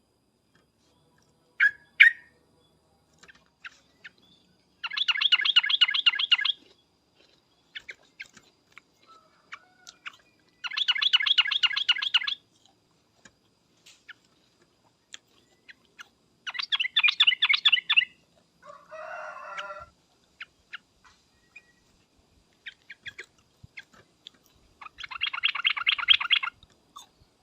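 Yellow-vented bulbul (trucuk) calling in four rapid chattering bursts of about a second and a half each, several seconds apart, with short scattered chirps in between.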